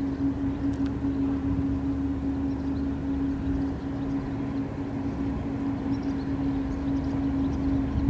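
Diesel engine of a passing dredger running steadily: a continuous drone with one held tone over a low rumble.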